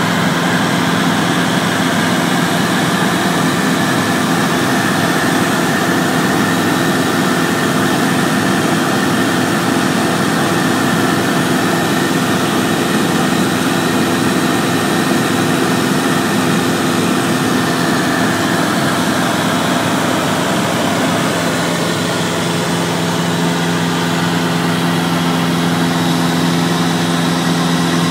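Cessna 172SP's four-cylinder Lycoming IO-360 engine and propeller running steadily in flight, heard from inside the cockpit as a constant drone with a low hum and a wash of airflow noise.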